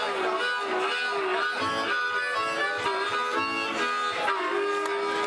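Blues-rock music with guitar and harmonica, playing steadily.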